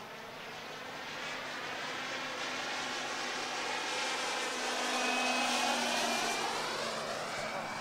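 Radio-controlled Embraer 312 Tucano scale model aircraft flying past in formation, their engines and propellers swelling to a peak about five and a half seconds in and then fading as they pass, with a faint high whine in the latter half.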